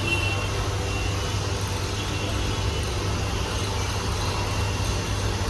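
HMT GTC28 tool and cutter grinder running under power, a steady low hum that holds without change.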